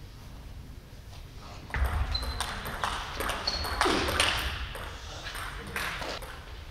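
Table tennis rally: a plastic ball clicking back and forth off rubber rackets and the table, a dozen or so quick strikes beginning just under two seconds in and stopping about six seconds in, with low thuds of the players' feet on the wooden floor.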